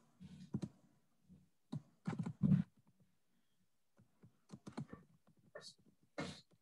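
Scattered light clicks and knocks at an irregular pace, clustered about two seconds in and again past the middle.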